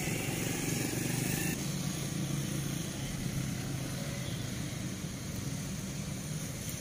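Steady outdoor background noise: a low rumble with an even hiss above it. Its character shifts slightly about a second and a half in.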